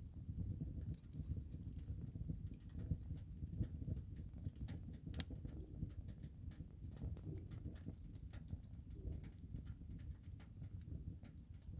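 Fire burning: a steady low rumble of flames with scattered sharp crackles and pops throughout.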